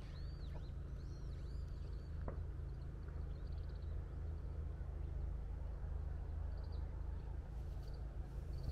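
A bird calling: a run of high, arching chirps in the first two seconds, then a few short high trills near the end, over a low steady rumble.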